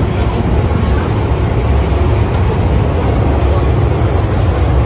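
MTR Metro-Cammell M-Train subway car heard from inside while running through a tunnel: a steady, loud low rumble of wheels on rail and running gear, with a hiss of tunnel noise above it.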